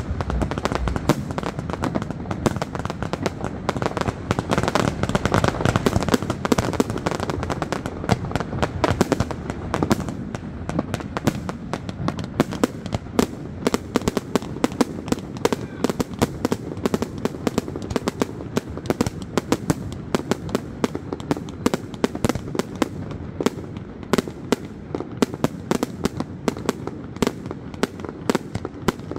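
Fireworks display: a rapid, continuous barrage of bangs and crackles with no break. It is densest in the first ten seconds or so and thins slightly after.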